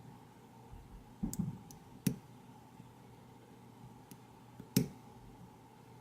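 Lock pick working the serrated pins of an ACE A527 padlock's pin-tumbler core, giving a few sharp clicks and snaps: a small cluster about a second in, one at about two seconds, and the loudest near the end. This is the clicking of serrated pins catching at the shear line under tension.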